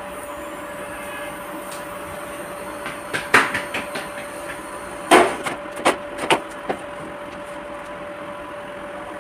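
A few sharp knocks and clatters of kitchen utensils on the counter, in two short clusters, over a steady faint hum.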